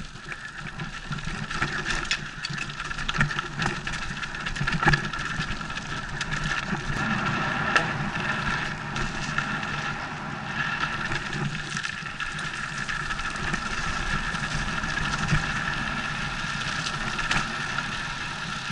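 Mountain bike riding down a rocky forest trail: a steady mechanical buzz over the rumble of tyres on dirt and stones, with scattered clicks and knocks from the bike.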